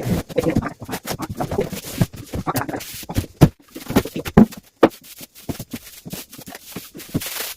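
Irregular knocks, scrapes and rustling of a Xigmatek Duke 3F PC case and its packaging being handled during unboxing, with a few sharper thumps and a brief rush of rustling near the end.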